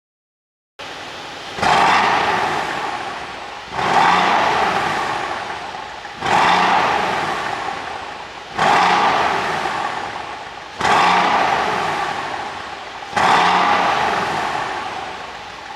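Mercedes-AMG C63's twin-turbo 4.0-litre V8 blipped six times, about every two seconds, each rev rising sharply and falling away over the next two seconds. It runs on an ECU tune set up for exhaust pops and crackles on the overrun.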